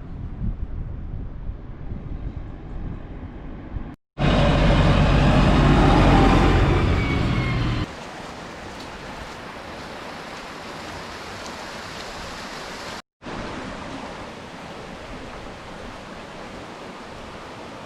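Wind buffeting the microphone, with a much louder, heavier gust from about four seconds in that lasts several seconds. The noise is broken by brief silent gaps where the shots change.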